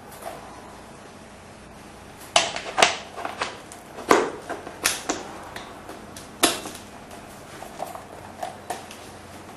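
Hard clicks and knocks from hands handling a Tonfly skydiving camera helmet and fitting its converter parts: about a dozen irregular strikes, the loudest between two and seven seconds in.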